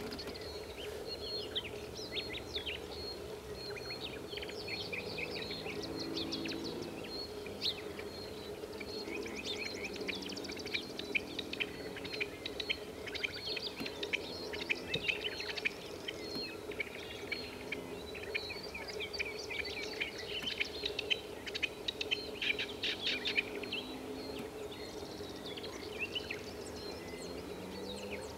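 Rock partridges calling: bursts of rapid, harsh chattering notes, densest about ten seconds in and again past twenty seconds, over a faint steady high tone.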